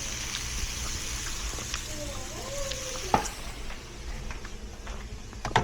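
Meat stir fry sizzling steadily in a frying pan, with two sharp clacks of a utensil on the pan, about three seconds in and near the end.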